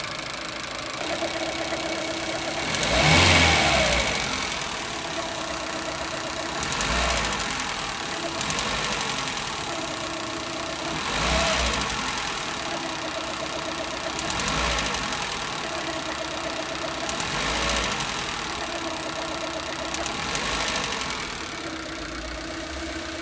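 Suzuki Eeco's four-cylinder petrol engine idling and given about six brief light revs, with an intermittent click on and off. The click and the slight misfire on revving come from a faulty ignition coil sparking against the body.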